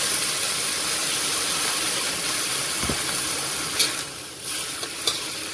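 Boiling water poured into a hot pan of stir-fried shrimp and luffa, hissing and sizzling steadily, then dying down about four seconds in. A couple of light clicks follow near the end.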